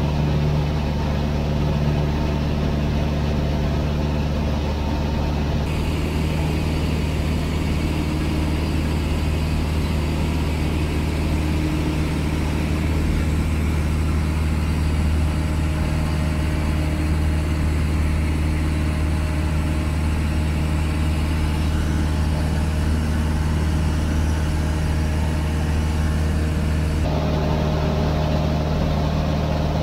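Cessna 152's four-cylinder Lycoming engine and propeller in cruise, heard from inside the cabin as a loud, steady drone. The hiss above it turns brighter about six seconds in and drops back near the end.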